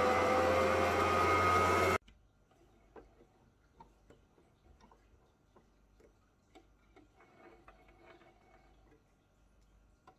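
Sewing machine motor running at speed while winding a bobbin, its pitch creeping slightly upward, then cutting off suddenly about two seconds in. Faint clicks and light handling noises follow as the machine is threaded by hand.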